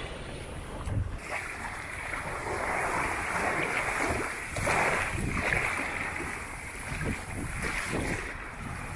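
Water rushing and splashing along the hull of a COCO 6.50 sailboat under sail, with wind buffeting the microphone. The rushing grows louder about a second in and swells a few times.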